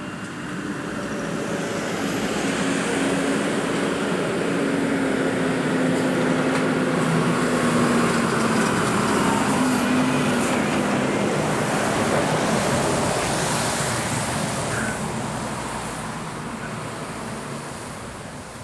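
Diesel milk tanker truck and trailer climbing a steep hill road under load. The engine and tyre noise swell as it passes close, loudest about halfway through, then fade slowly as it pulls away uphill.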